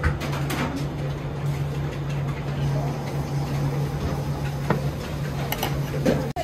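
Steady low hum and rushing noise of kitchen equipment, with a few light wooden knocks as wooden steaming boxes and their lids are set down, mostly near the end.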